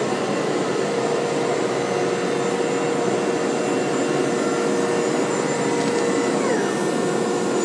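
Home-built CNCRP 4896 CNC router cutting holes in MDF with a 1/4-inch upcut spiral bit: a steady whine with the rushing noise of dust extraction drawn through the brush dust shoe and its hose.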